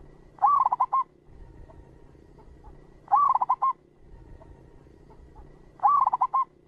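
Zebra dove (perkutut) cooing: three short phrases of rapid, clipped notes, one about every two and a half seconds.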